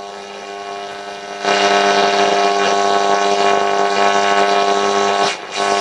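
Hacker Mini Herald transistor radio's speaker giving a loud steady buzz over hiss while tuned between medium-wave stations, growing louder about a second and a half in and breaking up near the end as a station comes through. The buzz is local electrical interference on the medium-wave band.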